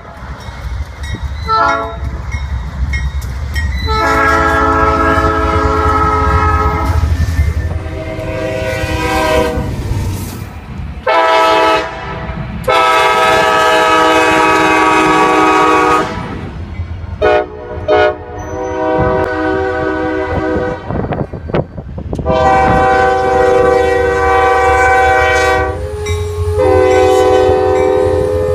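Locomotive air horn sounding a series of long and short blasts, each a chord of several tones, over a steady low engine rumble.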